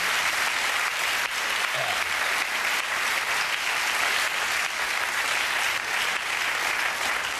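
Studio audience applauding steadily throughout.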